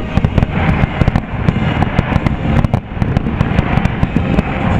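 Aerial fireworks bursting in quick succession: many sharp bangs and crackles a second over a continuous low rumble.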